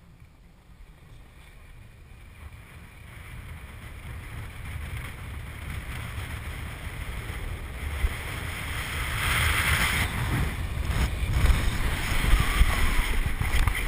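Wind buffeting the microphone and the hiss and rumble of a snow tube sliding over groomed snow, growing steadily louder as the tube picks up speed. In the last few seconds the noise is loudest and uneven as the tube runs onto the rubber braking mats.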